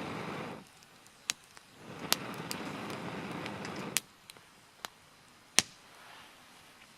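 Wood fire crackling, with sharp snaps about a second in, near two seconds, at four seconds and twice more around five seconds. Two stretches of rushing noise of about two seconds each, one fading out half a second in and one from about two to four seconds, cut off abruptly.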